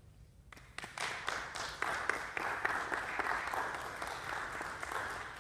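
Audience applauding: a quick start about half a second in, a steady patter of many hands, easing slightly near the end.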